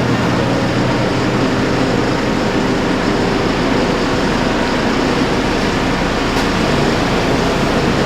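Diesel engine of heavy farm machinery running steadily under a constant mechanical hum.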